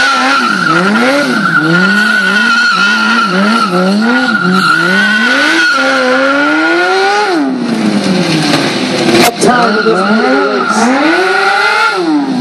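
Stunt sport bike's engine revving up and down about once a second while its rear tyre squeals at a steady high pitch, drifting in tight circles on asphalt. Past the middle the squeal and revs break off for about two seconds, with a sharp click. Then the revving and squeal return, ending in a long rising rev.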